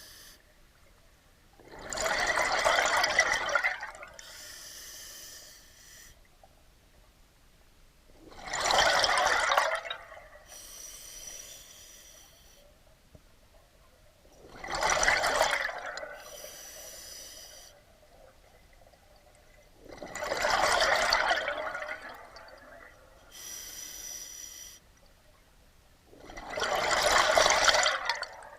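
A scuba diver breathing through a regulator, about five slow breaths. Each exhalation sends a loud rush of bubbles lasting a couple of seconds, and each inhalation makes a quieter hiss through the regulator.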